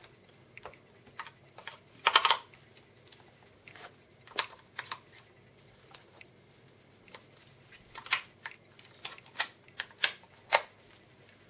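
Scattered clicks, taps and short rustles of hands handling a small plastic camera-mounted shotgun microphone and its box, loudest in a quick cluster about two seconds in.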